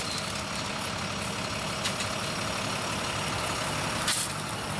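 Heavy diesel work vehicles idling steadily, with a couple of short scraping knocks about two and four seconds in.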